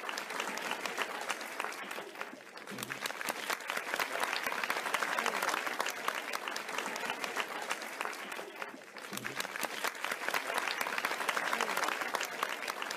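Audience applauding, a dense steady clapping that thins briefly twice.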